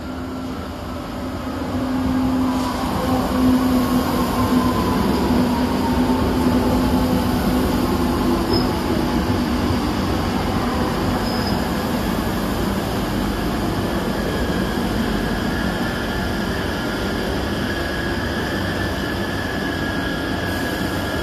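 Madrid Metro electric train running on the rails with a steady rumble that swells over the first few seconds. Its motor whine falls steadily in pitch over the first several seconds, and a thin, steady high tone joins in from about halfway through.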